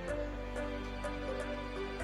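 Background music: soft electronic track with held synth chords over a steady bass note, light percussion ticking in time.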